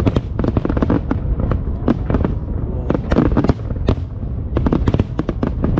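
Fireworks display: a dense, rapid barrage of crackling bangs, many per second, over a continuous low booming rumble.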